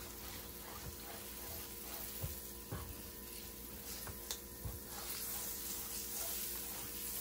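Water sizzling on a hot electric griddle as it is wiped down with a wet paper towel, with a few light taps and scrapes.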